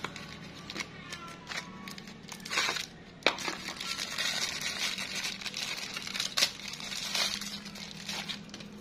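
Plastic bag crinkling and tearing as it is opened by hand to take out a new cam chain, with scattered sharp clicks.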